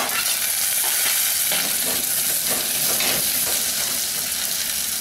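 Small onions, garlic and curry leaves sizzling in hot sesame oil in a clay pot, stirred with a steel spoon: a steady frying hiss with soft stirring strokes.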